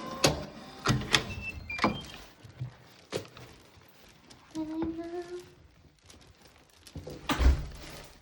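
Sharp clunks and clicks, typical of a front door being unlocked and opened, with one short pitched call a little past the middle.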